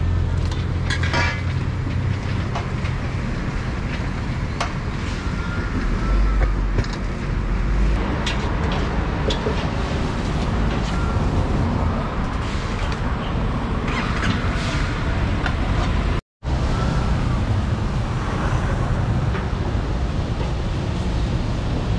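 Busy street ambience: a steady traffic rumble with scattered sharp clicks and knocks. The sound drops out completely for a split second about sixteen seconds in.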